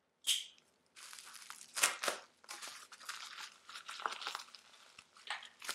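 A clear plastic parts bag being opened by hand, its plastic rustling and crinkling, with a short sharp sound just after the start and several louder crackles.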